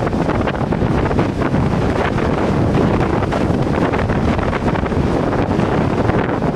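Storm wind buffeting the microphone in a dense, gusting rumble, over the steady rush of rough surf breaking on a sandy beach.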